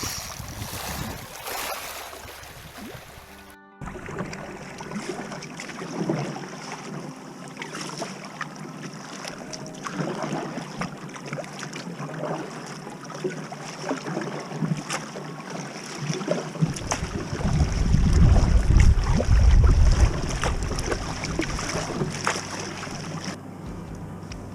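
Wind and water noise out on a kayak, with small knocks and splashes. About seventeen seconds in, strong wind buffeting on the microphone takes over for several seconds before easing.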